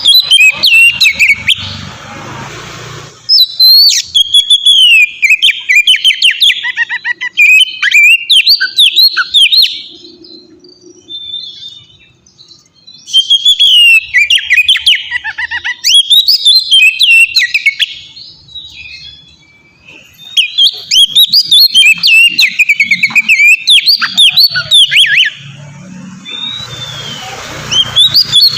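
Oriental magpie-robin (kacer) singing a loud, varied song of quick whistled notes and trills. It sings in phrases several seconds long, separated by short pauses.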